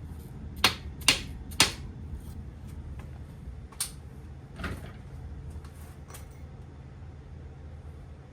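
Three sharp knocks of hard objects about half a second apart, then a few lighter clacks: tools and engine parts being set down and handled during engine assembly. A steady low hum runs underneath.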